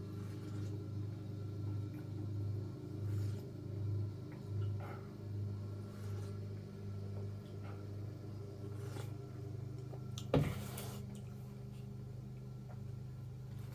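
Steady gulping as a man drinks from a bowl, swallows coming about every 0.7 seconds for the first eight seconds or so, over a steady low hum. About ten seconds in there is a single sharp knock as the bowl is set down.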